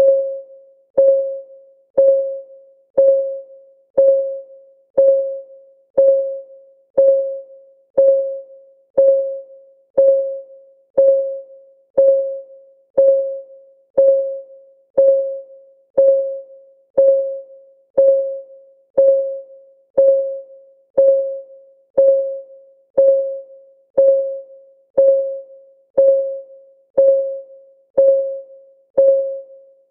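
A countdown timer's electronic clock tick: one short pitched note every second, each starting with a click and dying away in about half a second, at a perfectly even pace.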